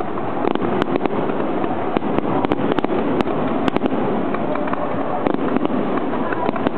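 Aerial fireworks display: shells bursting overhead in a steady din, with many sharp crackling pops scattered through it.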